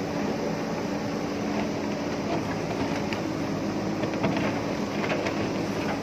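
JCB backhoe loader's diesel engine running steadily under load as the backhoe arm digs into soil and rock, with several short clinks and knocks in the middle of the stretch.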